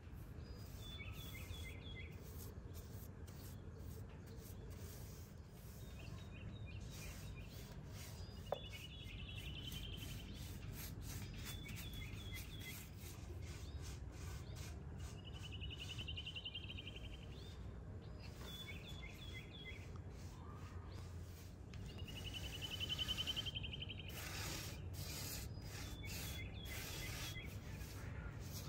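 A paintbrush rubbing and scrubbing paint onto a wooden table in short strokes, over a low steady background noise. A bird sings short phrases every two or three seconds, sets of quick notes alternating with a fast trill; the loudest trill comes near the end. There is one sharp click about a third of the way in.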